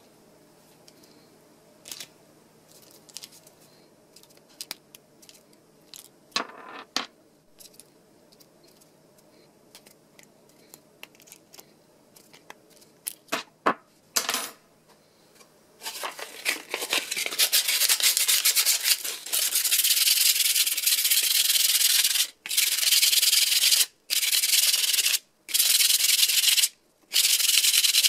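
Scattered clicks and light metallic knocks as the ball bearings are pushed out of a polyurethane skateboard wheel with a rod and set down on a wooden bench. Then, from about halfway, loud continuous hand-sanding of the wheel with sandpaper, broken by a few short pauses near the end.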